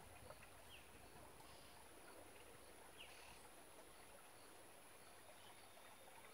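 Near silence: faint outdoor background with a steady high-pitched insect drone and two short, high falling bird chirps, about one and three seconds in.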